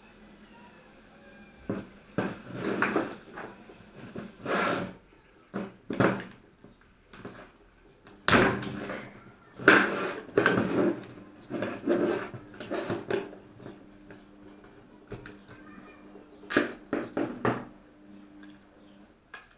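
Irregular clunks and knocks of a car door being handled, opened and shut. The loudest come in the middle stretch.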